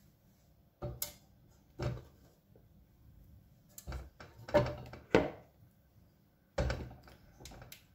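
Whole raw potatoes set down one by one in a Tefal Easy Fry & Grill air fryer basket, knocking on its grill plate and against each other. About seven separate dull thuds and knocks come a second or so apart.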